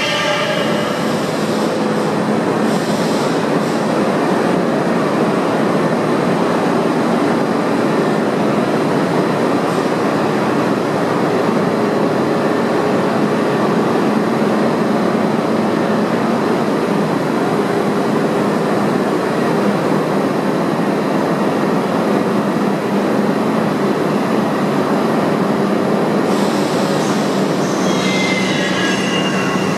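New York City subway train running through an underground station, with a loud steady rumble of wheels on rail. High-pitched wheel squeal fades out in the first second or so and comes back near the end.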